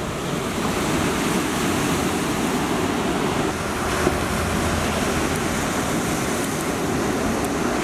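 Sea surf breaking and washing over shoreline rocks: a steady rush of foaming water.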